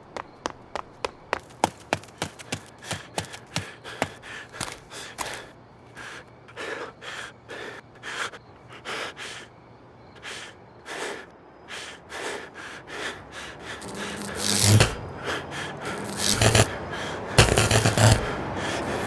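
A man gasping and panting hard for breath after running. The first few seconds carry quick sharp steps that slow and stop, and the breaths grow louder near the end.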